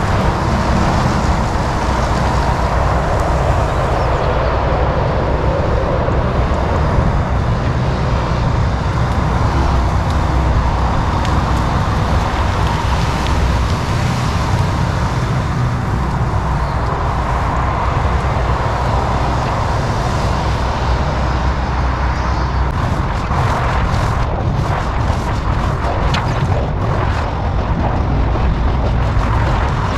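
Kobelco SK85 MSR 8-ton excavator's diesel engine running steadily under work. Short knocks and clatter come in over the last third.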